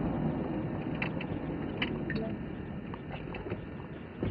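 Police patrol car driving: steady low engine and tyre noise, with a few faint clicks scattered through.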